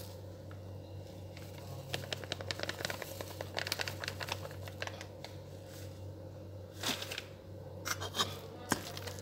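Plastic packet of gram flour crinkling as it is tipped and shaken to pour the flour out, a run of small quick crackles, with a louder rustle about seven seconds in.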